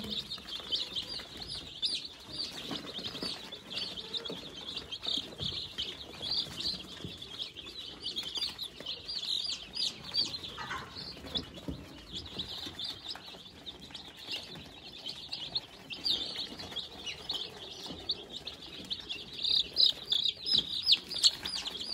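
A crowded flock of young Rhode Island Red and Black Australorp chicks peeping nonstop, with many short, high chirps overlapping. The chirping grows busier near the end.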